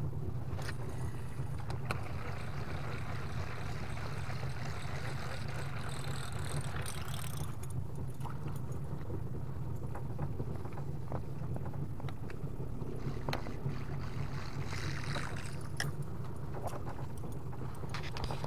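Small wooden river boat's engine running steadily at low speed, a constant low hum, with a few light clicks over it.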